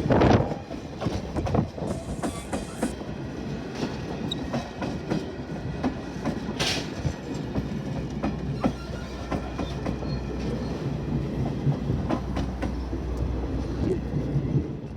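Railroad cars rolling along the track: a steady low rumble with frequent clacks of wheels over rail joints, and a loud clank right at the start.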